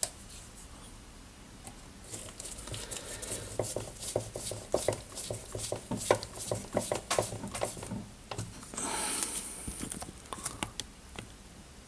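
Small irregular clicks and taps of a screwdriver and fingers working at the switch terminal of an opened angle grinder as a power-cord wire is fastened to it, with a brief rustle about three-quarters of the way through.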